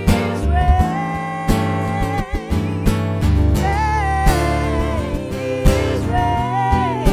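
Two women singing together with long held notes and vibrato, over a strummed acoustic guitar.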